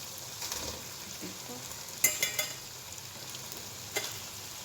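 Chicken sizzling as it fries in a pan, with a utensil stirring and scraping. A loud ringing metal clatter comes about two seconds in, and a single knock near the end.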